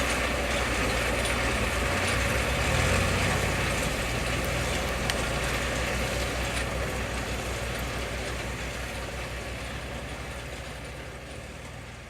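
Tractor diesel engine running steadily, the sound fading away through the second half.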